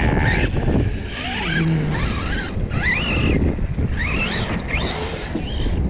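Redcat Kaiju's brushless electric motor whining up and down in pitch in several quick bursts as the RC truck is driven hard on the throttle, over a steady low rumble.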